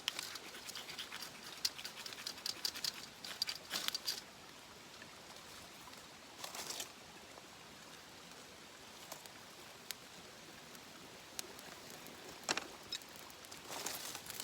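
Rustling with quick, light clicks and taps. They come in a dense cluster over the first four seconds, then a short rustle about six and a half seconds in, and further taps near the end.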